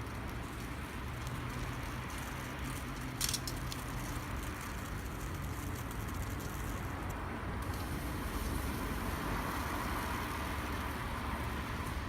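Steady distant road-traffic rumble, swelling as a car passes near the end, with a campfire's wood giving one sharp pop about three seconds in.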